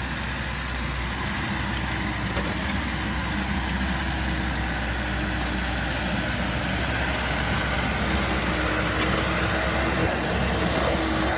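Diesel engine of a Komatsu tracked excavator running steadily at the worksite, with a faint steady tone that grows a little stronger near the end.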